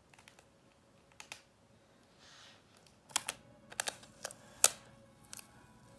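Sticky tape and paper being handled: a short rasp a little over two seconds in, then a run of sharp crackles and taps, the loudest a little past four and a half seconds.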